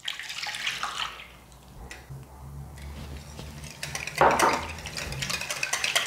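Milk poured into a glass bowl of beaten eggs, then a wire whisk beating the mixture with rapid clicks against the glass bowl. There is one brief louder burst about four seconds in.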